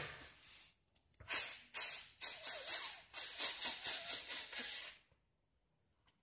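Breath blown hard through a loosely closed fist as a flutist's breathing exercise (Faustatmung): a long hiss of breath trails off, then about a second in comes a run of short, quick puffs, roughly three a second, that stop about five seconds in.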